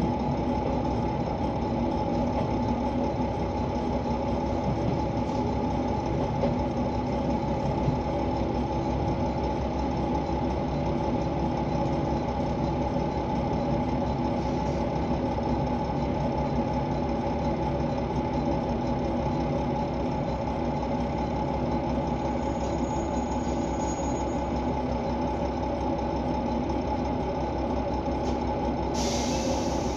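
KiHa 120 diesel railcar's engine idling steadily at a constant pitch. A hiss starts just before the end.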